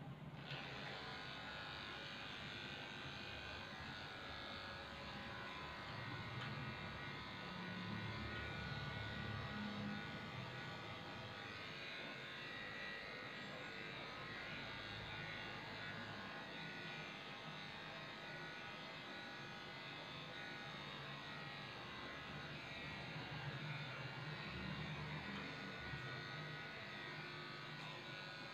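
Electric dog grooming clippers switched on and running with a steady hum while shaving down a Shih Tzu's coat.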